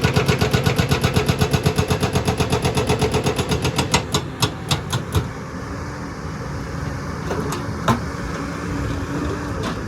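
Excavator at work on rock: a fast, even hammering of about eight blows a second stops about four seconds in after a few loose knocks. The engine then runs on more quietly, with a single sharp knock near eight seconds, and the hammering starts again at the very end.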